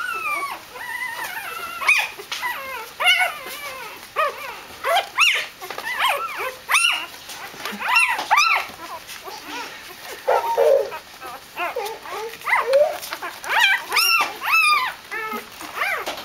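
Newborn Doberman puppies whimpering and squealing, with many short high calls that rise and fall, coming one after another and overlapping.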